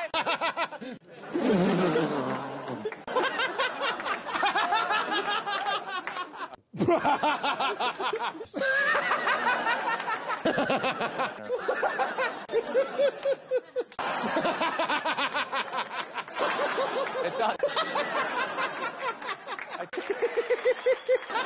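A man laughing hard, in loud runs of rapid pulsing bursts. It is cut together from several takes, with abrupt breaks between them.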